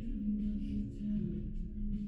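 Café ambience: soft background music with a steady held low tone over a continuous low rumble of room noise.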